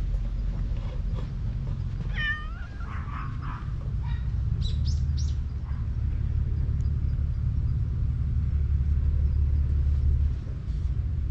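A tabby-and-white stray cat meows once about two seconds in, followed by a few short, high squeaky calls a couple of seconds later, over a steady low rumble.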